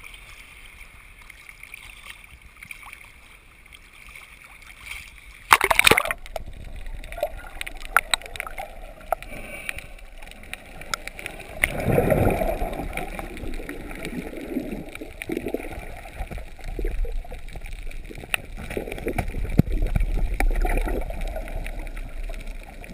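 Sea water at the surface, then a loud splash about five seconds in as the camera dips underwater. After that, muffled underwater sloshing and gurgling, with a louder swell of bubbling around halfway and a low rumble near the end.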